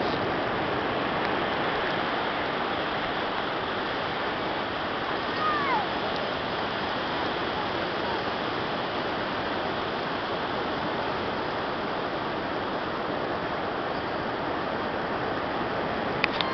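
Steady rushing of surf on the beach, with a short falling whistle about five and a half seconds in.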